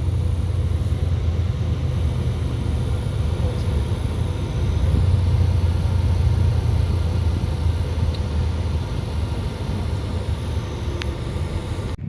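Steady low rumble of a running vehicle engine, even throughout, with faint steady tones above it.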